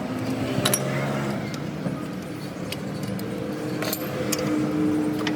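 A few sharp metallic clinks, about a second or more apart, over a steady hum and background voices.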